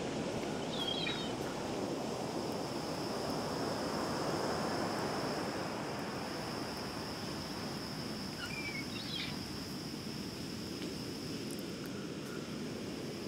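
Quiet background ambience: a steady hiss with a thin, steady high-pitched whine, and two brief chirps, about a second in and again about nine seconds in.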